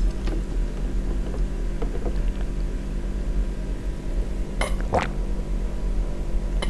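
Drinking water from a plastic jug, with a couple of short gulping sounds about five seconds in, over a steady low hum.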